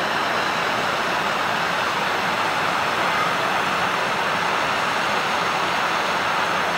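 Handheld MAP gas torch burning with a steady hiss as its flame heats the tip of a steel nail red-hot to soften it for bending.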